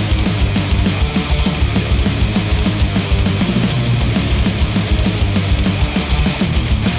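Heavy rock music with a fast, steady drum beat and guitar, played back through headphones and picked up by microphones placed at the earcups.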